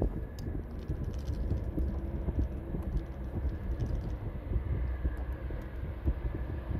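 Small twin-engine business jet taxiing, its idling engines heard as a steady low rumble.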